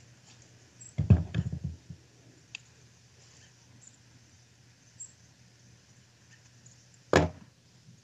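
Knocks and thuds from a rifle and gear being handled at a plastic storage box: a cluster of heavy thuds about a second in, a few faint clicks, and one sharp knock near the end.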